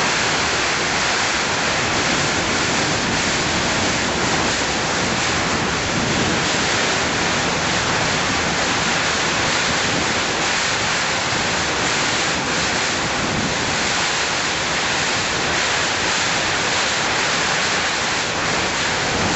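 Category 4 cyclone's wind and torrential rain making a steady, loud rushing noise.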